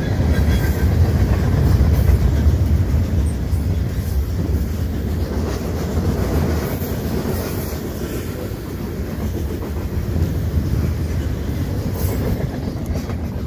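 CN freight train's gondola cars rolling past at speed: a loud, steady low rumble of wheels on rail that eases slightly toward the end.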